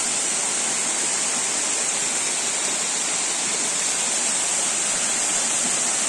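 Waterfall spilling over moss-covered rock ledges into a pool: a steady, even rush of falling water.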